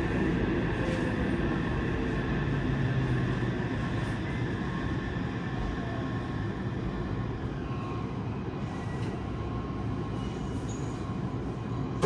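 Yokohama Municipal Subway 3000S train heard from inside the car, braking to a stop at a platform. Its Mitsubishi IGBT-VVVF inverter tones slide down in pitch as the running noise gradually dies away.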